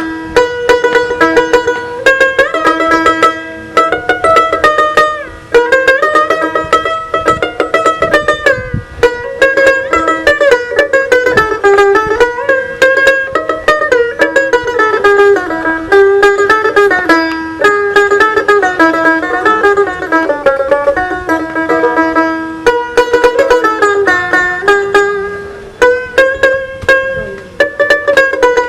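A dotara, the fretless plucked long-necked lute of Bengal, playing solo: quick plucked melody notes that slide up and down in pitch over a steadily repeated drone note.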